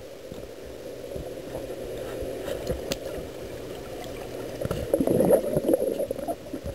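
Polaris pool cleaner running underwater, heard through the water as a muffled low churning and gurgling. It grows louder and more bubbly from about five seconds in, with one sharp click a little before that.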